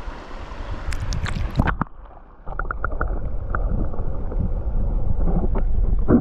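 River water splashing and sloshing as a trout is released from the hands back into the river. A few sharp splashes come early, then a muffled gurgling and rumbling with small clicks, and a louder splash at the very end.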